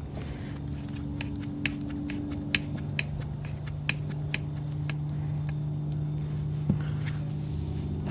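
Scattered light clicks and ticks of the freshly rebuilt hose-bib faucet's metal handle and parts being worked by hand. A steady low hum runs underneath.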